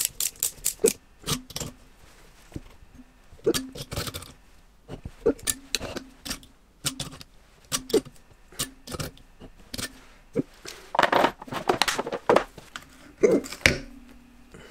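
Ratcheting ring spanner clicking as it is swung back and forth, turning a stud at the cylinder base of a two-stroke moped engine crankcase: a quick run of clicks at first, then scattered clicks and metal clinks of the tool and parts being handled.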